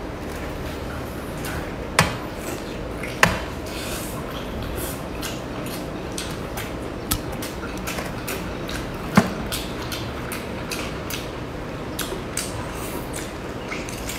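Hard shell of a cooked lobster claw cracking and clicking as it is pried apart by hand, with a few loud sharp cracks among many lighter clicks.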